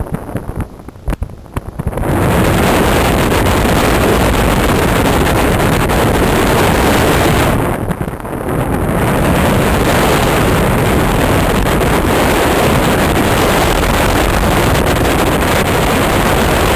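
Wind rushing over the microphone in flight, gusty at first, then a loud steady rush from about two seconds in, with a brief lull near the middle.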